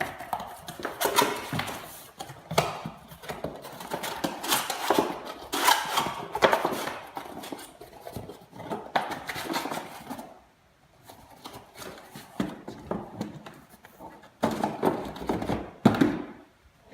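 Corrugated cardboard being handled: irregular scraping, sliding and rustling with sharp knocks and taps as the pieces are folded and pushed into place. It pauses briefly about ten seconds in and again near the end.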